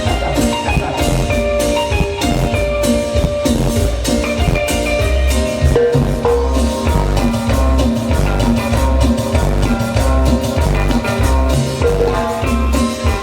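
Instrumental cumbia music with a steady drum beat and melodic lines over it.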